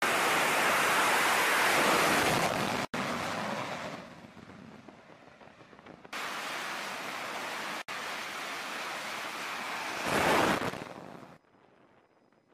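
Jet engines of F/A-18 fighters on an aircraft carrier's flight deck: a loud, steady rushing roar heard in several cut-together stretches. Twice it drops out for a split second, it swells loudest a little after ten seconds in, and then it falls away suddenly to a faint hiss near the end.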